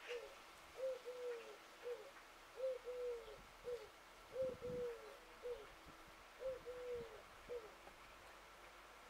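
A dove cooing in repeated three-note phrases, a short note, a longer drawn-out note, then a short note, four phrases in all.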